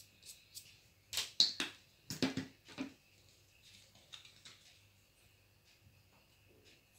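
Painting tools handled on a glass tabletop: a quick run of sharp clicks and clacks about a second in and again near two seconds in, with a few faint ticks around them.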